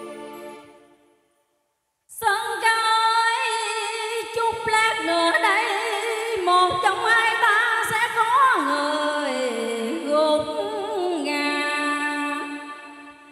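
The backing music fades out, and after about a second of silence a woman sings a slow cải lương line with wide vibrato and sliding pitch into a microphone, over the club's PA, fading out near the end.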